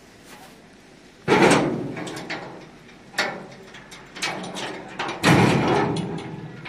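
Metal clanking and rattling from the steel tailgate latches of a Tata Ace mini truck's cargo body being worked open by hand. There is a loud clank about a second in, several lighter knocks, and a loud clank near the end.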